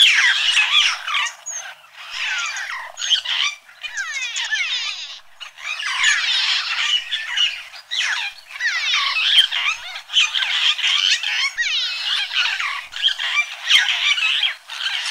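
A dense chorus of many animals calling at once: overlapping chattering calls, rapid rattles and short rising and falling notes, loud and nearly continuous with a few brief lulls. No low sounds are heard.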